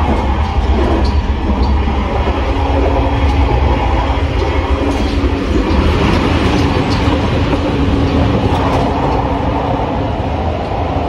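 Running noise inside a moving Sonic limited express electric train: a steady low rumble with faint rail clicks, and a steady hum that comes in about two seconds in.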